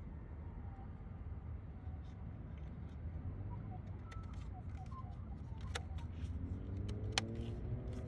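Small plastic clicks and ticks as a VW Golf MK5 mirror adjustment switch is pressed and snapped into the door's window-switch panel, with two sharp clicks near six and seven seconds in. A steady low rumble lies underneath.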